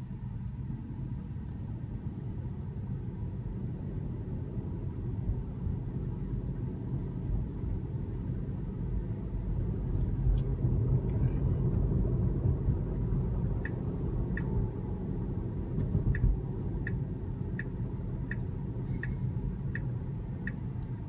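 Road and tyre noise inside the cabin of a Tesla Model 3, a steady low rumble. About two-thirds of the way through, the turn-signal indicator starts ticking, roughly one and a half ticks a second, before a turn.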